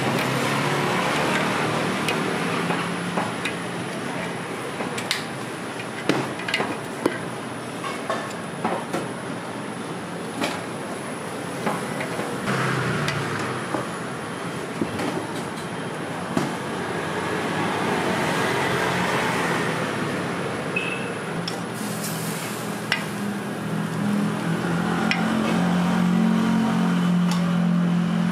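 Scattered sharp metallic clinks and taps, typical of tools working a red bean cake griddle at a street stall, over a steady background of street and traffic noise. A low engine hum grows louder near the end.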